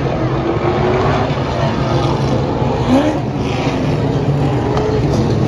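A pack of stock cars running together on a short oval track. The engines make a steady, loud drone, with pitch rising and falling as cars go by.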